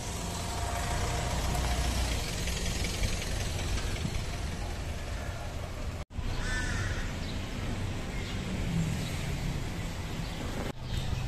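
Outdoor city street ambience, a steady hum of traffic noise, with a few short harsh bird calls just after the middle. The sound drops out for an instant about six seconds in.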